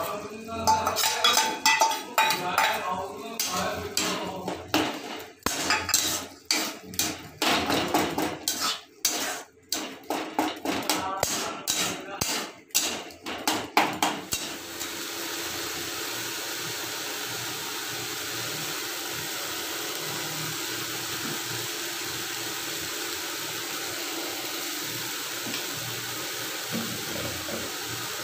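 A steel spatula knocking and scraping against a steel bowl and a steel kadai in quick irregular clatter as ginger-garlic paste is scraped into the pan. About halfway through the clatter stops and a steady even hiss takes over.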